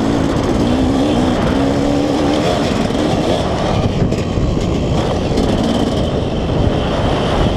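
KTM SX 125 two-stroke motocross engine ridden hard on a dirt track, its break-in finished; the engine note rises and falls as the throttle is worked. Wind rushing over the onboard camera's microphone runs underneath.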